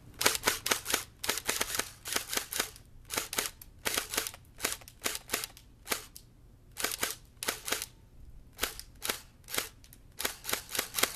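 Airsoft gun firing a long string of single shots, sharp cracks a few a second in quick clusters with short pauses between them.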